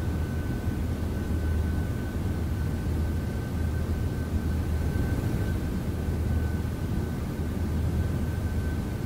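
Steady low hum with a faint constant high-pitched tone over it, unchanging throughout.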